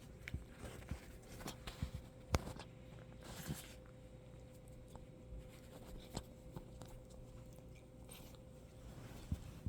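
Nose rubbing and scuffling: scattered small clicks and knocks, the sharpest a little past two seconds in, and one short breathy burst about three and a half seconds in.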